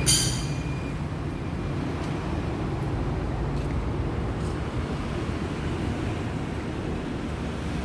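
Woodworking machinery running steadily with a low rumble. A brief sharp high-pitched screech at the very start, like a saw blade finishing a cut.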